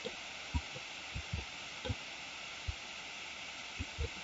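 Soft, irregular low thumps, about ten in four seconds, over a steady faint hiss: computer mouse and desk handling noise picked up by the desk microphone.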